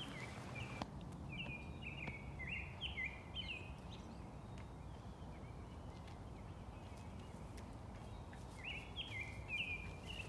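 A songbird singing runs of short, clear whistled notes, once for the first few seconds and again near the end, over steady low outdoor background noise.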